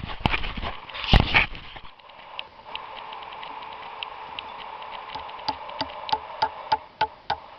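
Hammer driving a nail into a wooden support piece: a few heavy knocks, then a run of light ringing taps that grow louder and quicker, about three strikes a second.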